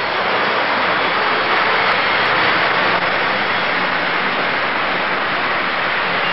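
Model freight train running past on the layout track: a steady rolling hiss of wheels on rail that swells slightly as the cars go by.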